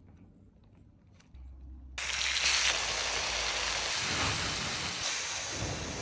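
Meat sizzling loudly on a hot steel griddle plate over a wood fire. The sizzle starts abruptly about two seconds in, after a quiet start with faint taps, and holds as a dense, even hiss.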